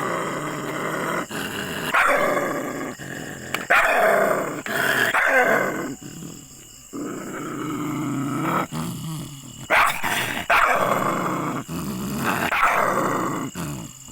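Dogs growling and barking aggressively: long snarling growls broken by sharp barks, with a quieter stretch about halfway through.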